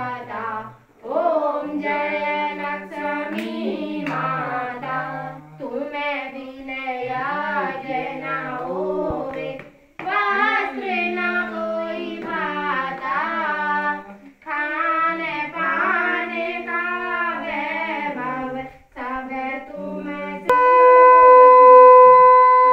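Voices singing an aarti hymn in short phrases with brief breaths between them. About 20 seconds in, a conch shell is blown in one loud, steady note.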